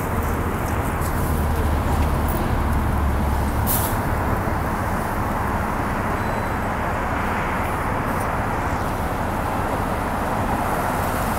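Articulated LiAZ 6213.22 city bus idling at a stop, its diesel engine giving a steady low rumble that is heavier for the first few seconds, over the hiss of street traffic. A single brief click about four seconds in.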